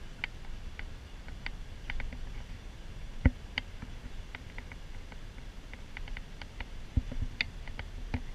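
Inside a moving van: a steady low rumble of engine and road, with scattered light clicks and rattles from the cabin. Two heavier thumps come about three seconds in and about seven seconds in.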